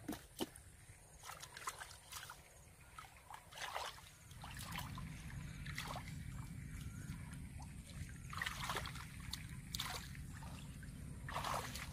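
Hands sloshing and splashing in shallow muddy paddy water, scooping and groping through the mud in irregular short splashes and trickles. A low steady rumble comes in about four seconds in.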